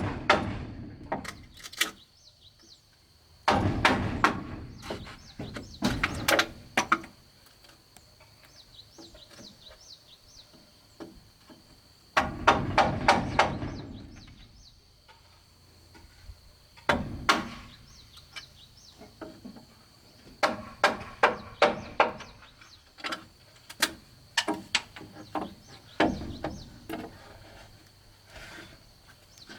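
A hand tool striking wood in bouts of rapid knocks, a few seconds each, with pauses between them.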